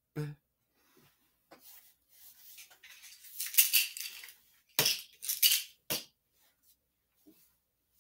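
Hard household objects clattering and rattling as they are knocked about, ending in a short run of sharp knocks about five to six seconds in.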